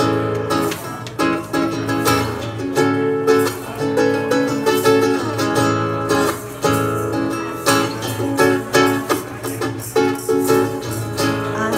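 Acoustic guitar playing chords, a steady run of plucked notes with no voice over them.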